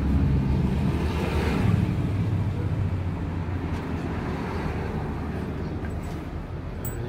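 A vehicle engine running, a low steady rumble that slowly fades away.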